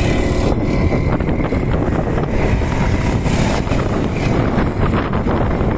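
A racing kart's engine passing close and pulling away, heard under wind buffeting the microphone.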